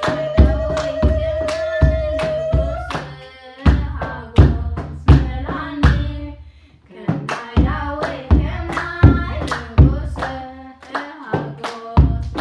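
Voices of a woman and children singing an Eritrean Orthodox mezmur (hymn), kept in time by a steady beat of hand claps with a deep thud to each stroke, a little over one a second. The singing and beat break briefly a little after the middle, then carry on.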